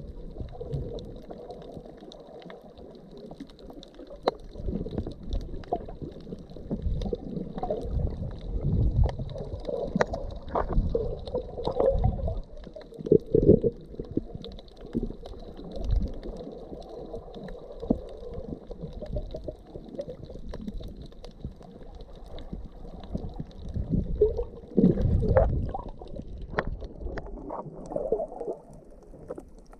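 Muffled underwater water noise picked up by a submerged camera: low gurgling and sloshing of shallow seawater, with several irregular louder surges.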